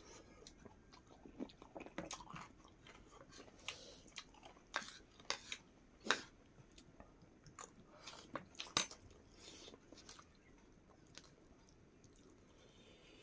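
Close-up eating sounds: irregular chewing, lip smacks and bites as two people eat chicken and rice with their hands. The smacks come thickly for the first ten seconds or so, then thin out.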